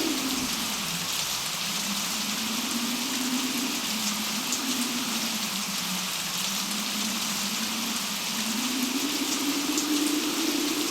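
Steady heavy rain with a low wind howl whose pitch slowly wavers up and down, rising again near the end.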